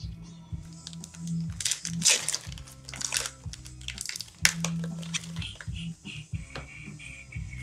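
Foil wrappers of Upper Deck hockey card packs being handled and torn open, rustling in short irregular spurts, loudest about two seconds in and again around four and a half seconds. Background music with a steady bass runs underneath.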